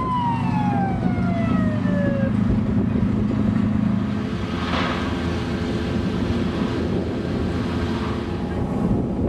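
Off-road race truck engine whose pitch falls steadily over about two seconds as the truck pulls away, over a steady low rumble of engines. A short rushing noise comes about halfway through.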